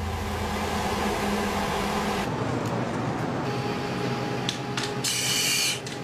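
A steady hiss, then a quieter room with a faint steady hum. Near the end come a few sharp clicks of calculator keys and a brief rustle of paper receipts.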